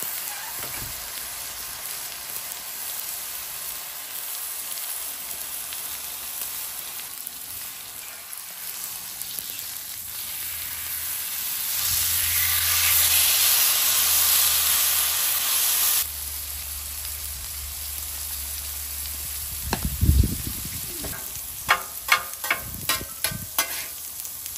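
Marinated sirloin steak sizzling on a hot Weber Traveler flat-top griddle. About halfway through, the sizzle swells louder as the steak is turned onto the hot steel, then drops back about four seconds later. Near the end come a dull thump and a quick run of taps.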